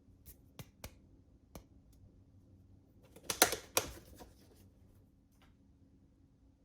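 Kitchen handling sounds while mac and cheese is prepared: a few light clicks and taps, then a louder rustling clatter lasting under a second about three and a half seconds in.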